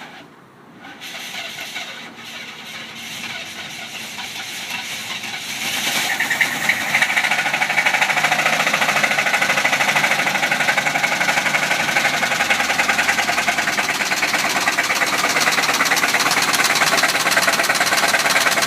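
1973 Chevy C30's 454 big-block V8 (LS5) running with a fast, even rod knock. It grows louder over the first six seconds, then holds steady. The knock is a sign of worn-out bottom-end bearings, which the owner blames on the engine having been run low on oil.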